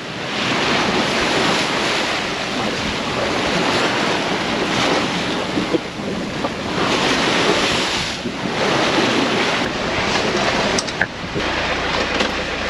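Wind buffeting the microphone and rough sea rushing past a sailing yacht under way, rising and easing every few seconds. A few sharp clicks come near the end.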